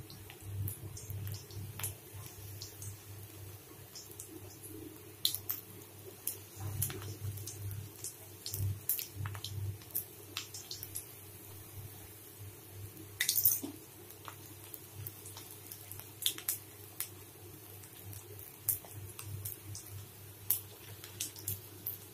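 Batter-coated cauliflower florets deep-frying in hot oil in a kadai: a sizzle with scattered sharp pops and crackles, and a louder cluster of pops about halfway through. A low steady hum runs underneath.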